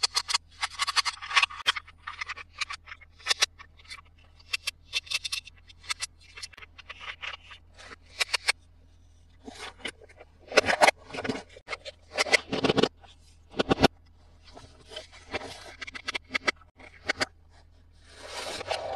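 Hands unboxing and handling plastic toys and their packaging: a string of small clicks, taps and scrapes, with a few louder knocks about halfway through and a longer rustle near the end.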